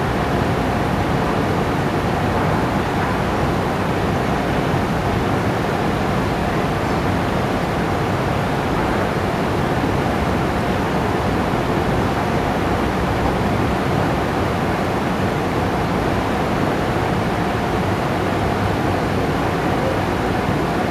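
Water cascading down a fountain's rippled surface, a steady rushing noise that covers the road traffic passing underneath.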